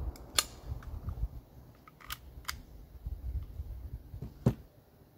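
Sharp mechanical clicks and knocks of firearms being handled and set down on a table, the loudest two about half a second in and near the end, over a low rumble.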